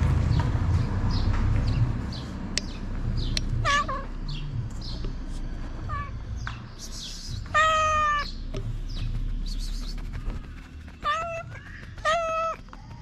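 A hungry stray ginger cat meowing about five times, the longest call about eight seconds in and two quick ones near the end. Low rustling of the cat rubbing against clothing in the first couple of seconds.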